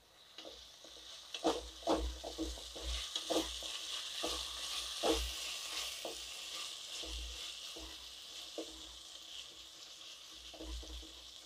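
Chopped onion, tomato and capsicum sizzling in oil in a kadhai while a wooden spatula stirs them, with scattered scrapes and knocks of the spatula against the pan. The sizzle eases toward the end.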